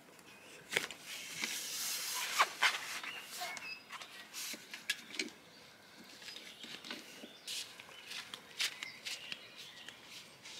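Rustling of caravan awning fabric with scattered clicks and knocks from its poles and fittings, as the awning is taken down and carried off. The rustling is strongest a couple of seconds in.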